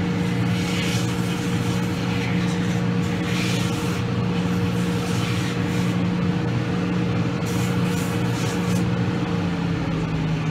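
Shoe repair finishing machine running steadily, with intermittent rasping as a rubber heel piece is roughed up on its sanding wheel before gluing; its hum drops in pitch near the end as it winds down.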